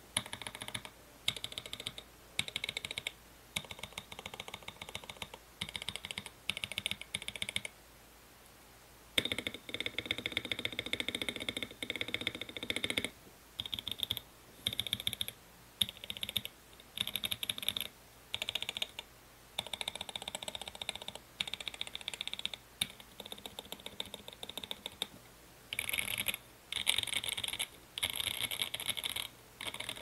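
Fast typing on an NK65 Blumen mechanical keyboard with Gazzew Boba U4T tactile switches and thick doubleshot ABS keycaps. Rapid keystrokes come in bursts a second or two long with short breaks between them, and there is a longer pause about a quarter of the way in.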